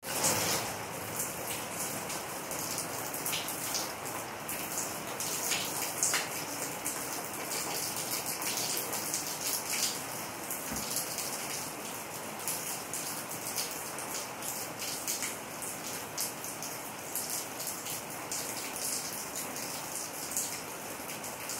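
Heavy rain falling on pavement and rooftops: a steady hiss with frequent sharp ticks of nearby drops striking.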